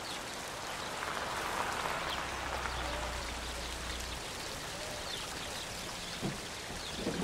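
Steady splash and hiss of running water, like a garden fountain, with faint bird chirps.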